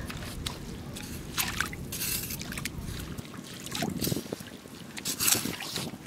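Metal tongs poking and stirring through seaweed in a shallow tide pool, making a few short splashes and sloshes of water.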